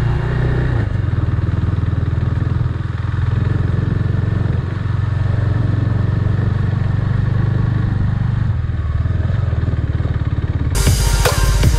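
KTM Duke 390's single-cylinder engine running steadily under way. Near the end a louder rattling noise with sharp clicks joins it.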